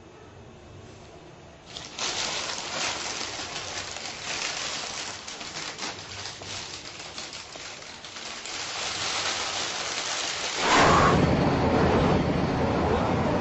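Plastic bag crinkling and rustling as it is handled and pulled open, with many quick crackles, starting about two seconds in. Near the end it gives way to a louder, steadier street noise.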